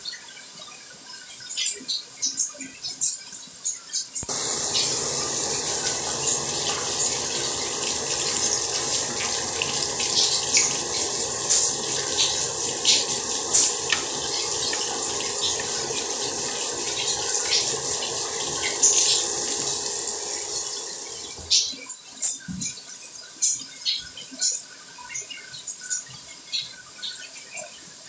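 Water dripping and trickling in small, scattered drops; about four seconds in, a steady rush of running water starts abruptly, like a tap pouring into a sink, and stops suddenly about three quarters of the way through, leaving the scattered drips again.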